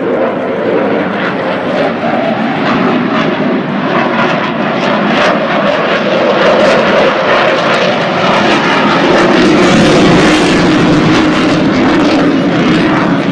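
Fixed-wing aircraft flying past, its engine growing louder to a peak about ten seconds in, the note falling in pitch as it goes by.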